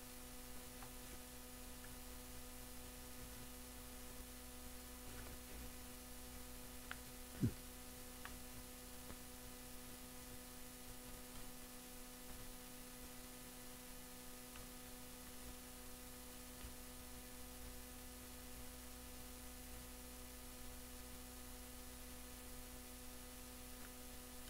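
Low steady electrical hum with a faint high-pitched whine above it, with a single sharp click about seven and a half seconds in.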